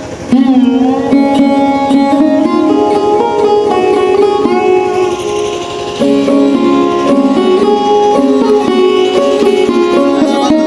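Background music: a sitar-like plucked string instrument playing a melody over a steady drone.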